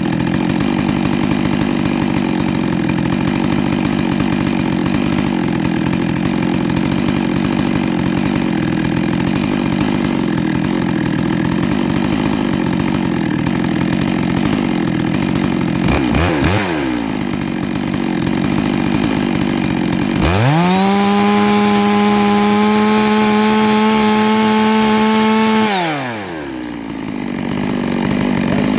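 Neo-tec NS892 two-stroke chainsaw with 404 chain, its carburettor leaned out a bit, running hard under load in wood. About 16 seconds in, the revs rise and fall briefly. About 20 seconds in, it revs to a high, steady full-throttle whine for around five seconds, then drops to idle and goes back under load near the end.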